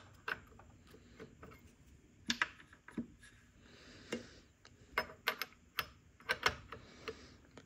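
A dozen or so light, irregular metallic clicks and taps as a chainsaw scrench is fitted onto and worked around the bar nuts of a chainsaw's side cover.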